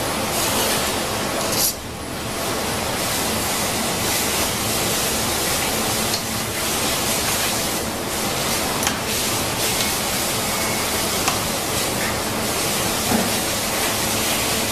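Steady, loud hiss throughout, with a brief drop about two seconds in and a few faint ticks.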